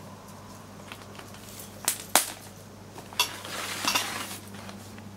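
A cat pouncing at a wand toy on a wooden floor: a few sharp taps about two and three seconds in, then a brief scrabbling scuffle.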